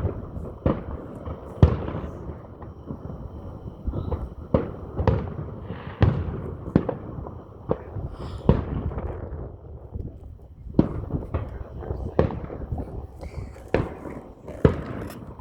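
Aerial fireworks bursting in quick, irregular succession, about twenty sharp bangs each trailed by a low rumble, with a short lull about two-thirds of the way through: the barrage of a display's grand finale.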